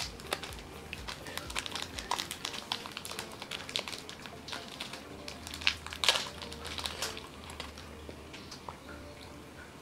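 Wrapper crinkling as a small market cake is unwrapped and pulled apart by hand: a dense run of short crackles, loudest about six seconds in, thinning out over the last few seconds.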